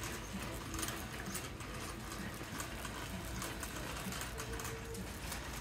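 Shopping cart rolling over a concrete store floor, its wheels and basket rattling in a quick irregular clatter over a steady low background hum.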